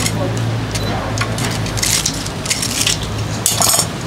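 Crisp fried battered snacks (Korean twigim) being handled in a plastic basket: a few irregular crunchy crackles of the fried crust, the loudest near the end, over a steady low hum.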